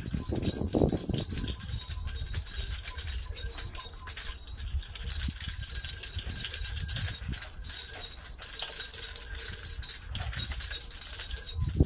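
Cicadas buzzing in a dense, pulsing chorus, high in pitch, over a low rumble.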